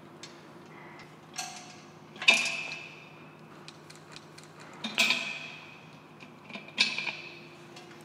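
Adjustable spanner knocking against the brass manifold on a steel blaster tank as the manifold is tightened: four sharp metallic clinks a second or two apart, each ringing briefly, the second the loudest. A low steady hum runs underneath.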